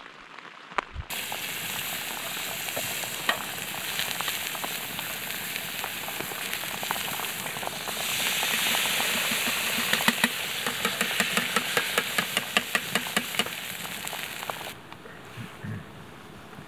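Food frying in a lidded pan over a campfire: a steady sizzle that grows louder about eight seconds in as the lid is lifted off, with a quick run of ticks and clicks after that.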